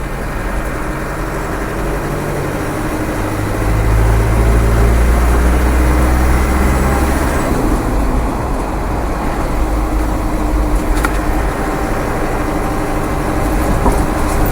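Land Rover Defender's 300Tdi 2.5-litre four-cylinder turbo-diesel running as the truck drives, with road noise, heard inside the unsoundproofed cab. The drone grows louder about four seconds in.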